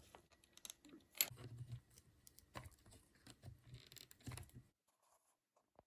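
Faint scattered clicks and taps of small plastic RC buggy parts being handled and turned over, cutting off suddenly about three-quarters of the way through.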